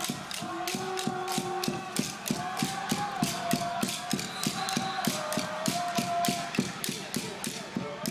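Rhythmic clacking from a cheering section beating noisemakers, about four even beats a second, with long held notes sounding over the beat.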